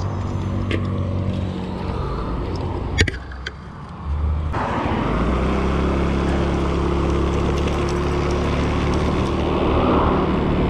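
Small motor scooter engine running steadily, with a sharp click about three seconds in; from about four and a half seconds the scooter is under way on the road, its engine running steadily under a loud rush of wind on the microphone, which swells slightly near the end.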